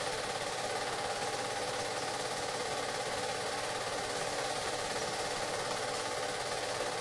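Steady, rapid mechanical clatter of a small machine running at an even pace, unchanging throughout.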